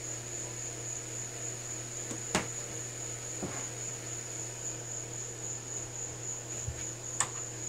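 Two sharp clicks about five seconds apart, with a fainter knock between, as the drive belt is worked onto the pulleys inside a Laguna Revo 18|36 lathe headstock. A steady high-pitched whine and a low hum sit underneath.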